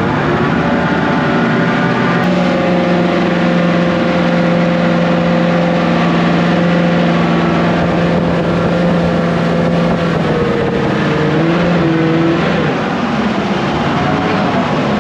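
Boat's Lexus 1UZ-FE V8 engine running under way at a steady throttle. About ten seconds in the pitch drops and the level eases slightly as it comes off the throttle.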